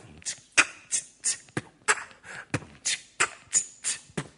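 Beatboxing into a microphone: a steady beat of mouth-made kick drum ('pu'), hi-hat ('chi') and snare ('ka') sounds, about three strokes a second.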